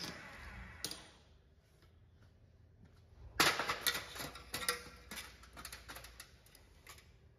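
Portable line boring machine's motor running down and stopping in the first second. About three and a half seconds in comes a run of sharp metallic clicks and knocks, the loudest sound here, lasting about three and a half seconds.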